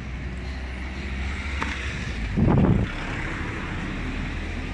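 Rummaging through a rubbish bin: plastic bags and cardboard packets rustling and shifting under the hands, with a louder rustle about halfway through and a few small knocks, over a steady low hum.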